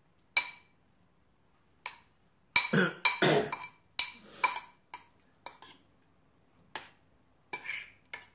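A metal spoon clinking and scraping against a bowl of ramen: about a dozen short, ringing clinks, bunched together between about two and a half and five seconds in.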